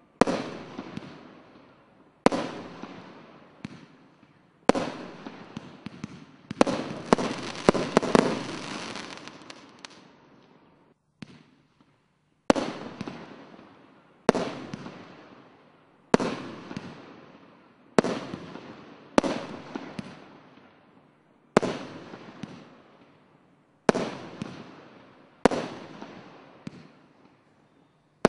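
SkyLine consumer fireworks going off in a sequence of sharp bangs about every two seconds, each dying away over a second or so. A quarter of the way in comes a dense flurry of rapid bangs, then a brief silent pause before the steady shots resume.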